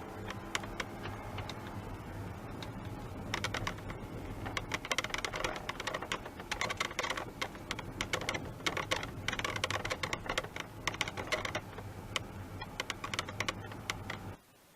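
Rapid clicking and creaking from a Honda S660's removable roll-top roof near the occupants' ears, coming in spells over the steady low drone of the car on the move. The rattle is the roll-top noise fault the owner set out to cure.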